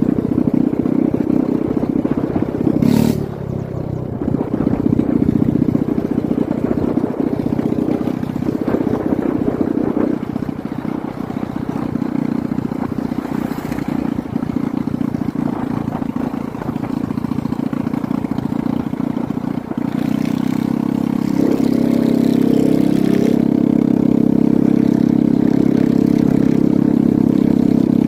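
A vehicle's engine running while driving along a road, with road and wind noise. The engine note steadies and gets a little louder about twenty seconds in.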